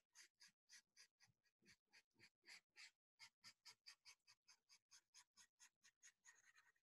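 Felt-tip marker scratching across paper in quick back-and-forth hatching strokes, about five a second, shading in shadow on a drawing. The strokes are faint and run together into a smoother scratch near the end.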